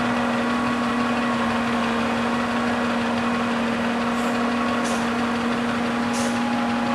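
Heavy diesel engine of earthmoving machinery running steadily at constant speed, with a few brief faint hisses about four to six seconds in.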